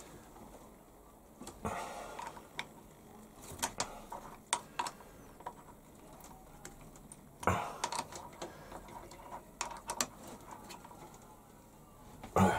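Scattered small metallic clicks and taps of a hex key and hand driver working screws tight in a lathe's steel compound slide, with a louder knock about seven and a half seconds in and another near the end.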